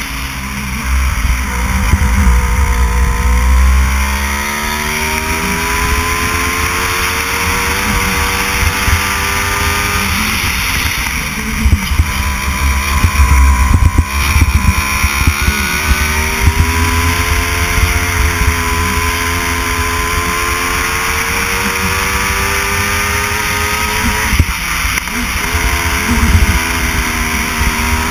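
Go-kart engine at speed, heard from on board the kart: its pitch climbs steadily down each straight and drops sharply twice as the driver lifts for corners, then climbs again. A heavy low rumble runs under it.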